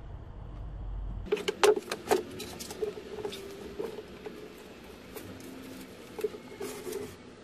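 Handling noises: a run of irregular light taps, clicks and rustles, sharpest about two seconds in and again near the end, after a low rumble that cuts off about a second in.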